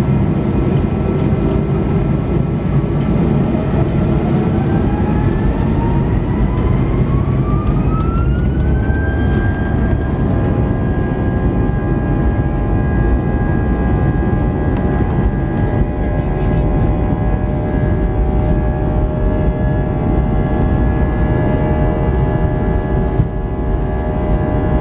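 Airbus A320's turbofan engines spooling up to takeoff thrust during the takeoff roll, heard from inside the cabin: a whine that rises in pitch and levels off into steady high tones about nine seconds in, over a loud, steady engine roar.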